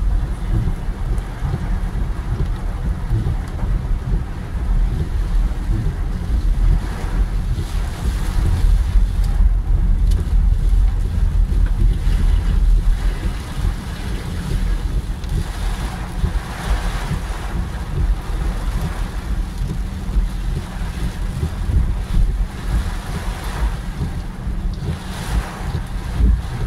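Heavy hurricane rain and wind on a car, heard from inside it, with a deep, steady rumble of wind buffeting the microphone.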